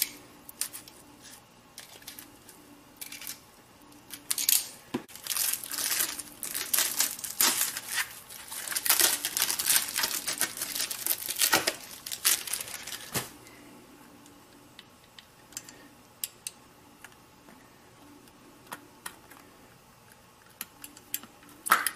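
Handling noise from a car headlamp and its plastic shroud being turned over in the hands: rustling, scraping and clicking of plastic, busy for about ten seconds from a few seconds in, then only scattered light clicks.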